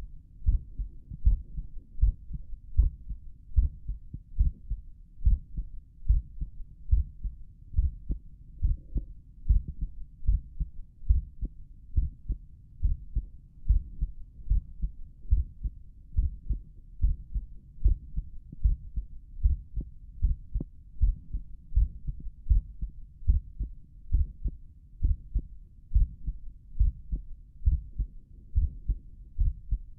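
A human heartbeat heard through a stethoscope on the chest, low thuds repeating in a steady, even rhythm.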